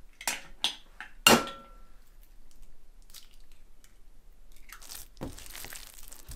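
An egg tapped a couple of times and then cracked sharply against a metal worktop, the last knock ringing briefly. Later, a steady crackly squishing as hands work riced potato and raw egg into dough.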